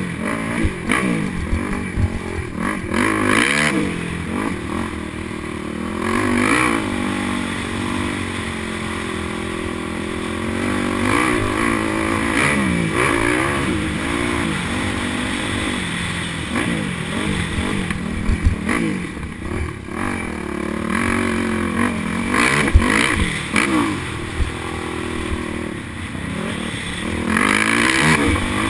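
Motocross bike engine being raced around a dirt track, revving up and easing off again and again so its pitch keeps rising and falling through the gears, with clatter and knocks from the bike over the bumps, heard from a camera mounted on the bike.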